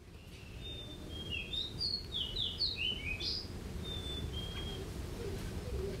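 Fox sparrow of the eastern red group singing: one song of rich, clear whistled notes that slur up and down, lasting about three seconds, followed by two short steady whistles.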